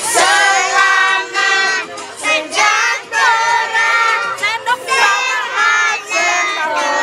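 A group of children and women singing together loudly in high voices, their pitches bending and overlapping.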